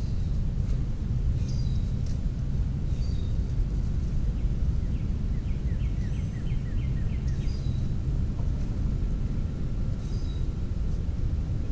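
Songbirds calling outdoors: short high chirps every second or two, and a quick run of repeated notes about five to seven seconds in, over a steady low rumble.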